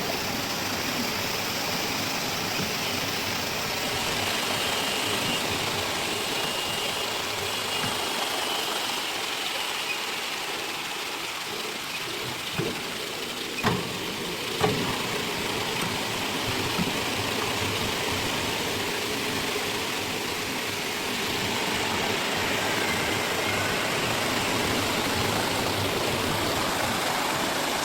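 Vortex vegetable washing machine running: a steady rush of churning water and machine noise, with three short knocks around halfway through.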